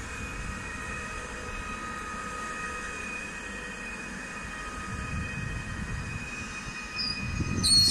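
PESA Elf EN76 electric multiple unit crawling past, a steady high electric whine over a low rumble. Near the end a brief, louder high-pitched noise.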